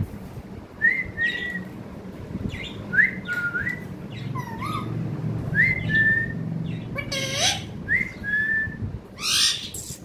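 Indian ringneck parakeet giving short whistles, each sliding up and then holding a note, repeated every second or so, with one harsh squawk near the end.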